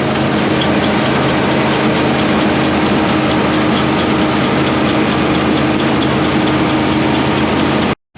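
Combine harvester engine and machinery running steadily at a constant speed.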